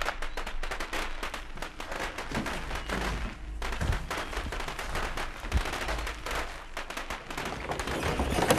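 A string of firecrackers going off in rapid, irregular crackling bangs, with a brief break about three and a half seconds in.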